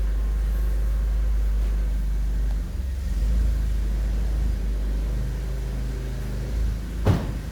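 A vehicle engine running steadily with a deep rumble, changing slightly about a third of the way in, and one sharp knock near the end.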